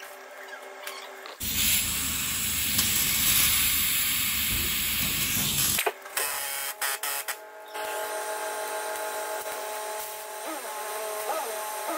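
MAP gas torch burning with a steady, loud hiss for about four seconds, then cut off suddenly. It is heating a seized U-bolt nut so the impact gun can shift it. A few short knocks follow, then a fainter steady hum.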